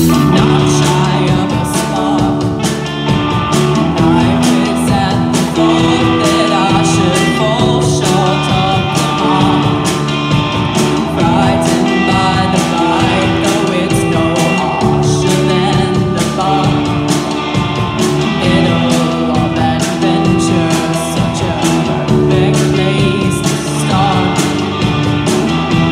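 Live rock band playing: electric guitar, bass guitar and drum kit, with a girl singing lead over them.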